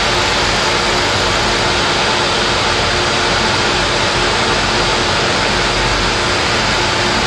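Miniature Stirling engine running at a steady speed: an even whirring noise with a faint steady hum under it.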